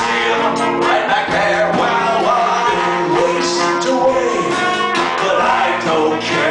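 Live band music with a voice singing over it.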